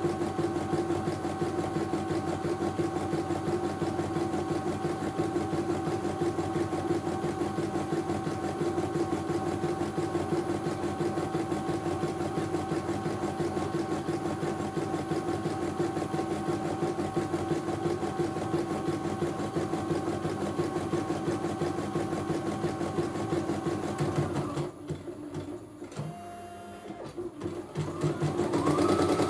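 CNY E900 computerized embroidery machine stitching a design, the needle running in a fast, even rhythm. About 25 seconds in the stitching stops for a few seconds, with quieter clicks and a brief motor tone as the embroidery arm moves the hoop, then the stitching starts again near the end.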